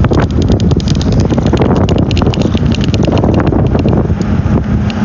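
Steady rumble of a car on the move, heard from inside the cabin, with crackling wind noise on the phone's microphone.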